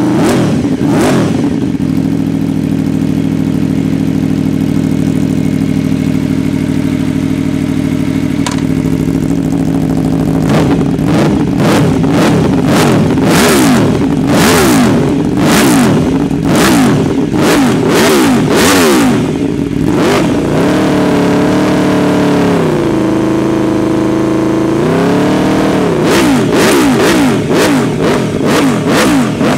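Aprilia RSV4's V4 engine running through a Fuel Exhausts F1R prototype carbon end can: idling steadily for about ten seconds, then revved in a long series of quick throttle blips, dropping back to a lower idle for a few seconds before more blips near the end.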